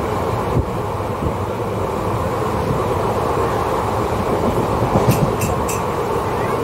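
Passenger train running, heard from inside the carriage: a steady noise of wheels on rail, with a few brief high-pitched sounds about five seconds in.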